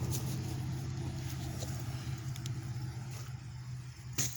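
Low steady hum of a motor vehicle's engine, slowly fading away, with a few faint clicks and a sharp knock near the end.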